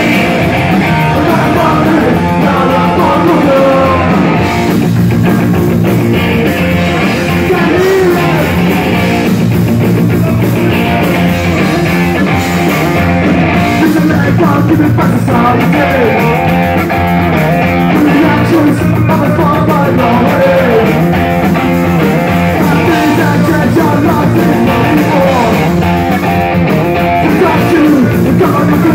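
Punk rock band playing live at full volume: electric guitars, bass and drums, with a vocalist singing into the microphone. Recorded from the crowd close to the stage.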